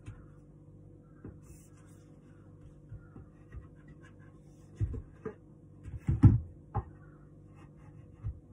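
Wooden table parts knocking and clunking together as a table leg is handled and fitted onto its wooden foot, with a cluster of louder knocks a little past the middle and one more near the end, over a faint steady hum.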